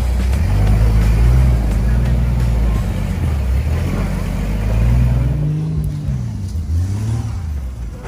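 Off-road 4x4 race buggy's engine revving up and down under load as it crawls over creek rocks, with a climbing rev about five seconds in that drops away again.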